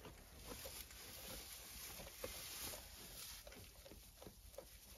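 Faint rustling and crunching of hay and straw, in soft irregular clicks: sheep pulling and eating hay at a metal hay rack and livestock shifting in straw bedding, over a low steady hiss.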